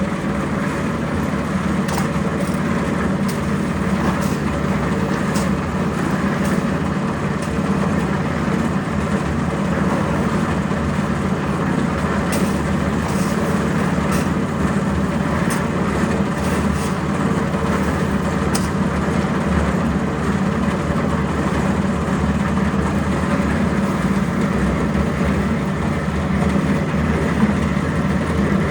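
Engine of a portable concrete mixer running steadily while it mixes a batch of cement, sand, gravel and water, with scattered sharp knocks and clinks.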